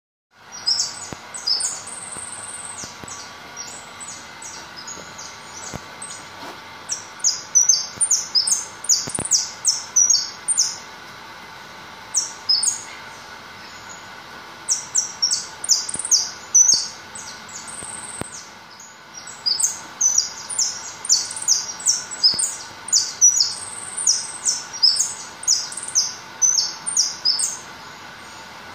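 A caged white jilguero (finch) singing: phrases of quick, very high chirps and trills, broken by short pauses, with the song thickest in the second half.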